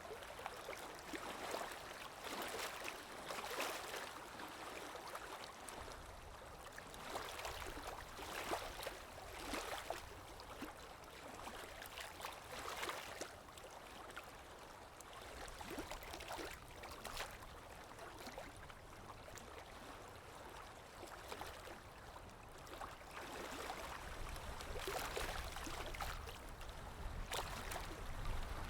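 Water lapping, with small irregular splashes coming every second or so, over a low wind rumble that grows stronger near the end.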